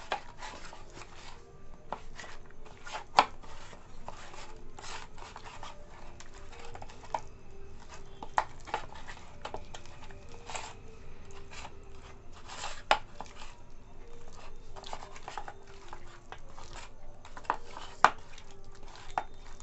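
Hands working chicken leg pieces into a flour coating in a stainless steel bowl: irregular rubbing and squishing, with sharp clinks against the bowl now and then, the loudest about three seconds in and near the end.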